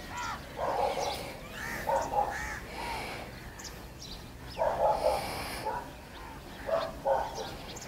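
Short animal calls in uneven clusters, several close together about a third of the way in and again near the middle and the end. Faint high bird chirps sound between them.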